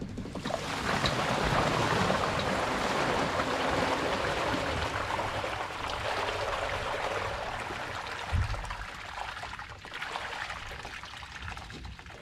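Rainwater pouring out of a small sailboat's hull, a steady rush that slowly tapers to a trickle, with a single knock about eight seconds in.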